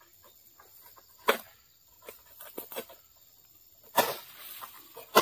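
Sharp cracks and knocks of a long-pole harvesting sickle working at the stalks in an oil palm crown. The loudest come about a second in and at four seconds, the latter followed by a brief rustle.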